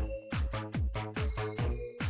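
Electronic dance music with a steady four-on-the-floor kick drum, about four beats a second, and synth chords.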